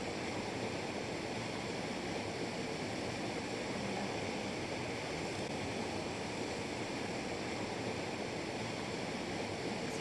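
Small river waterfall rushing steadily into a pool: an even, unbroken wash of falling water.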